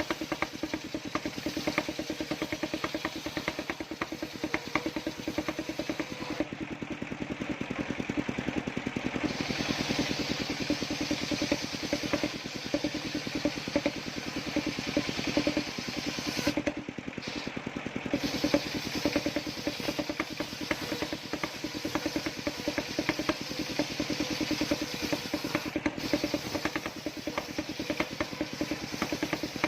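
Engine of a homemade circular-blade sawmill running steadily, its firing a fast even beat under a hissy upper layer that thins out briefly twice.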